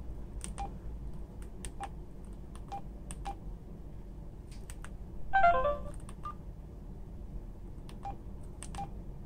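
Samsung B110 feature phone's keypad giving a short beep with each button press while its menus are stepped through. About five seconds in comes a quick chime of several notes falling in pitch, the phone's confirmation tone after saving a setting.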